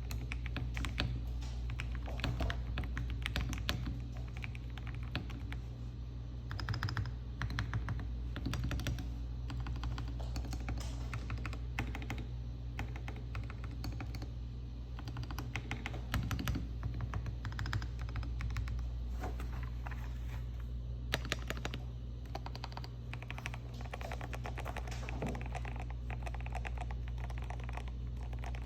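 Continuous typing on an Akko 5075B Plus mechanical keyboard with Gateron G Pro 3.0 Yellow linear switches: a dense, irregular run of key presses and bottom-outs, with a steady low hum underneath.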